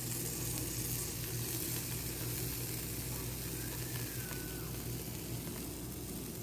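Burger patties sizzling on a wire grill over glowing charcoal, a steady hiss.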